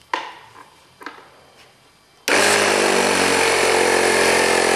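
Two light handling clicks, then the compressed-air supply for a pneumatic landing-gear cylinder's leak test comes on suddenly about two seconds in: a loud, steady buzzing rush that holds for nearly three seconds.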